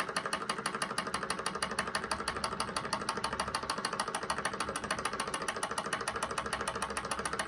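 SunnyTech hot-air Stirling engine running under its alcohol flame, just started and gathering speed: its crank, pistons and linkage make a rapid, even mechanical clatter of several clicks a second over a low hum.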